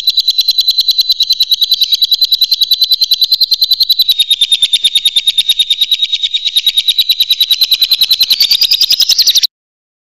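Lovebird giving its long chattering trill, the 'ngekek panjang' that bird-keepers prize: a fast, even run of shrill chirps that goes on unbroken for over nine seconds and stops near the end.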